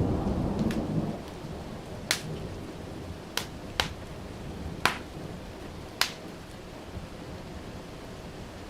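A short rumble of thunder at the start over steady rain, then a wood fire in a fireplace crackling with five sharp pops, irregularly spaced.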